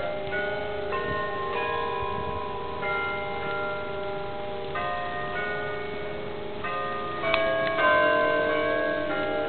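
Bells ringing a slow sequence of notes, each tone ringing on under the next, with a louder strike a little past seven seconds in.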